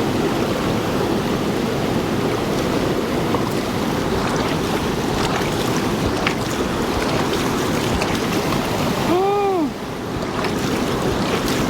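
Steady rushing water. About nine seconds in there is a short call that rises and falls in pitch.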